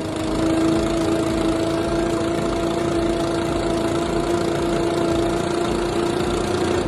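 Stihl BR 600 backpack blower engine running at a steady speed, a constant hum with an even rush of air.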